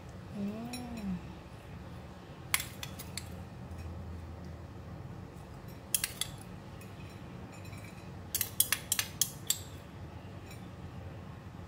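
A metal spoon clinking against a small glass bowl while scooping out fried garlic. There are a few separate clinks, then a quick run of them about eight to nine and a half seconds in.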